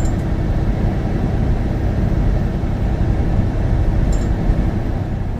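Steady low rumble of a semi truck's diesel engine running, heard from inside the cab.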